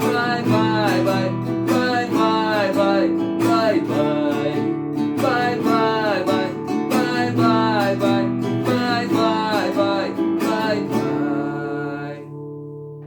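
Acoustic guitar strummed in a steady rhythm, with a melody over the chords. The playing stops about twelve seconds in and the last chord fades away.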